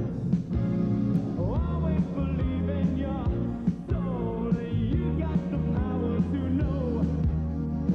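Upbeat music with a steady drum beat and a lead melody that slides up and down in pitch.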